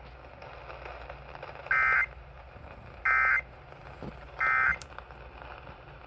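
Emergency Alert System end-of-message data bursts (SAME "NNNN" code) played through a small emergency radio's speaker. There are three identical short, harsh data bursts about a second and a half apart, marking the end of the severe thunderstorm warning broadcast, over a steady low hum of radio background noise.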